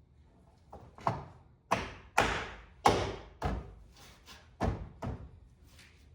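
A series of about eight irregular thumps and knocks, each sharp at the start and ringing briefly as it fades.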